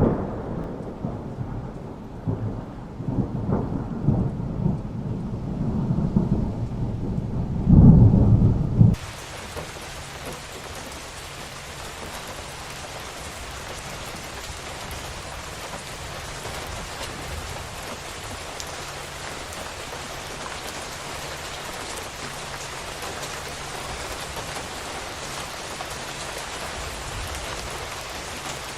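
Rolling thunder rumbling in swells for the first nine seconds, loudest at a final peal about eight seconds in, then cutting off abruptly. After it, steady heavy rain falling on a roof, an even hiss.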